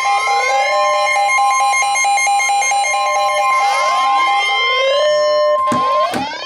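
Emergency alert tones: a steady alarm tone near 1 kHz, with a pulsing lower tone and repeated rising siren-like sweeps layered over it. The tones cut off with a few sharp clicks near the end, as the warning message is about to be read.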